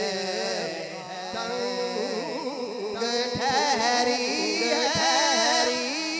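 Naat recitation: a man's voice singing a drawn-out, ornamented melody through a microphone and sound system, with long wavering held notes and no clear words.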